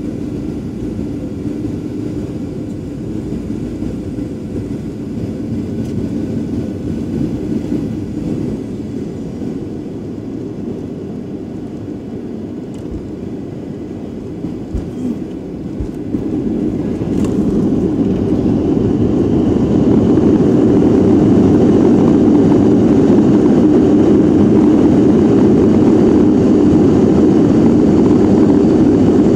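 Boeing 737 turbofan engine and airflow heard inside the cabin beside the wing: a steady run on final approach, a low thump of the wheels touching down about halfway through, then the engine running up loud and holding as the thrust reversers are deployed to slow the landing roll.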